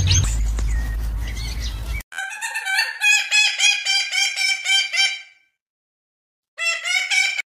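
A chicken clucking in a quick run of repeated calls, about four a second, that stops for about a second and then starts again briefly near the end. Before it, about two seconds of low steady rumble cut off suddenly.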